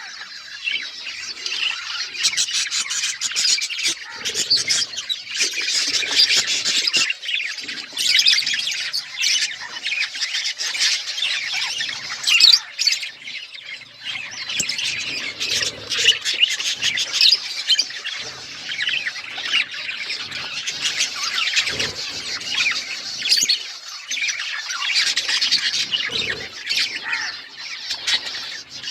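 Budgerigars chattering and chirping without a break, many short overlapping warbles with scattered squawks.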